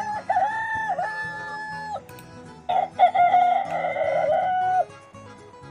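Rooster crowing twice, each crow about two seconds long.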